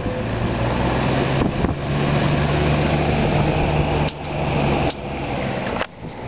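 Vintage Lakewood Country Aire 12-inch window box fan with a Redmond motor running: a steady motor hum under the rush of air from the blades. A few short clicks, with brief dips in level, come in the second half.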